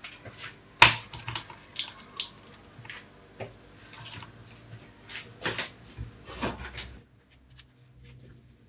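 Irregular taps and clicks of handling a raw stuffed chicken in a glass baking dish as its skin is pinned closed with toothpicks. The sharpest knock comes about a second in, and the sounds fade over the last second or two.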